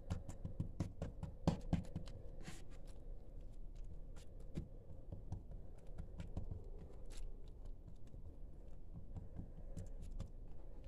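Hands folding and rolling an oiled, filled dough parcel on a baking tray: soft sliding and dabbing with scattered light clicks and taps, loudest about a second and a half in.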